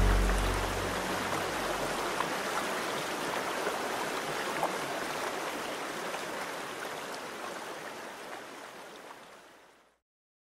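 Rushing water of a shallow river running over rocks, a steady rush that fades out gradually and stops just before the end. The last low notes of music die away in the first second or two.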